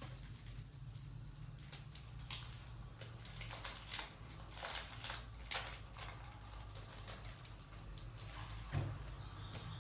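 Keystrokes on a NuPhy Air75 low-profile mechanical keyboard: irregular clicks, busiest in the middle, over a low steady hum.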